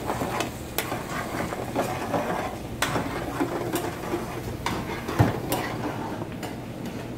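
Kitchen clatter: a metal spoon stirring and knocking in a metal pan of curry sauce at first, then scattered clinks and knocks of pots and utensils over a steady low hum.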